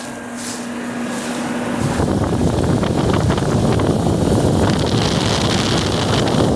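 A running outdoor HVAC unit's fan and compressor: a steady hum, then from about two seconds in a loud, even rumbling rush of fan air that grows louder.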